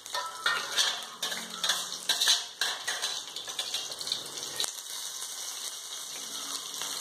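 Curry leaves, mustard seeds and green chillies spluttering in hot oil in a kadai. Sharp crackles and pops for the first few seconds settle into a steady sizzle.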